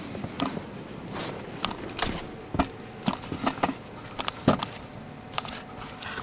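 Footsteps crunching in snow, an irregular run of sharp crunches with a few heavier ones.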